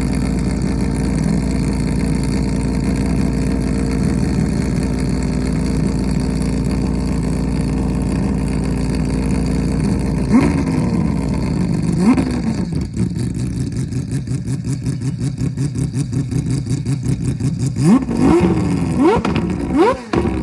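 Mazda 767B's four-rotor rotary engine. It runs at a steady, loud note for about ten seconds and is revved twice in quick succession. It then drops to a lumpy, pulsing idle, and near the end is blipped repeatedly in sharp rises and falls.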